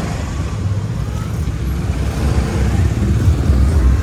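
Motor vehicle riding slowly along a street: a steady, uneven low rumble of engine and road noise.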